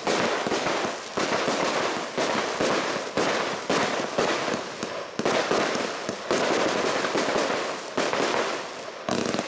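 ACME Fireworks AC2609 aerial firework shots going off one after another. There are sharp bangs about once or twice a second, with a dense noise between them.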